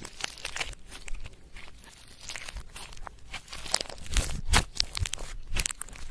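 Slime being mixed, giving irregular sticky crackling and popping clicks that grow louder and denser toward the end.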